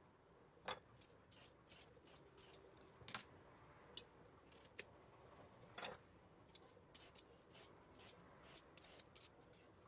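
Near silence broken by scattered faint knocks and short scrapes, a few a second, as peeled eggplants are handled and shifted on a wooden cutting board.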